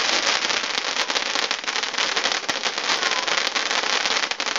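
Ground fountain firework spraying sparks: a steady, loud hiss thick with crackling.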